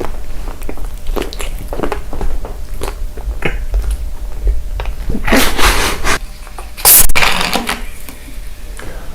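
Close-miked eating sounds: crunchy bites and chewing with sharp clicks, then two louder crackling crunches about five and seven seconds in.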